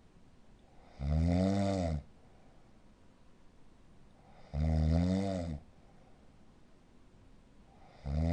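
Snoring of a person with sleep apnea syndrome: three loud snores about a second long, roughly every three and a half seconds, each rising and then falling in pitch, with quiet between them. The last one begins near the end.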